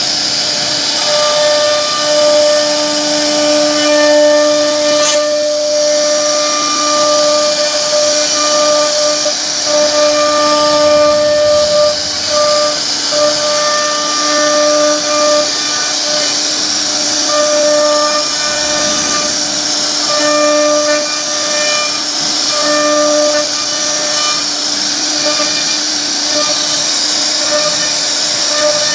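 CNC router spindle running as its bit carves a wooden panel, a steady high-pitched whine and hiss. A humming tone under it cuts in and out in short stretches as the machine moves.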